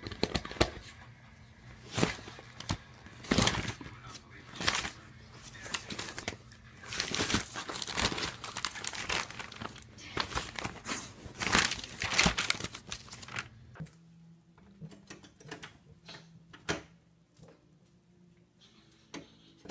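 Glossy magazine pages crinkling and tearing in a long run of sharp rustles as a pet worries at the magazine. About fourteen seconds in the rustling stops, leaving only a few faint taps.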